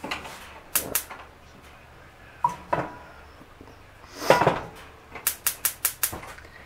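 Kitchen clatter of pans, dishes and utensils being handled: scattered knocks and clinks, a longer louder clatter about four seconds in, then a quick run of five sharp taps, about five a second.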